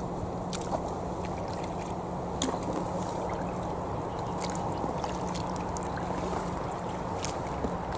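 Kayak paddle strokes in calm canal water: a few small splashes and drips from the paddle blade at irregular moments over a steady low background noise.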